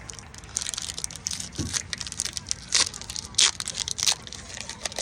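Foil booster-pack wrapper of Pokémon trading cards being crinkled and torn open by hand: a dense run of sharp crackles, with two loud crinkles past the middle.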